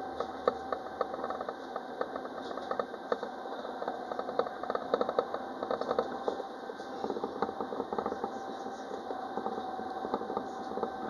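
Citadis Dualis tram-train running, heard from inside the cab: a steady whine with many irregular clicks and rattles.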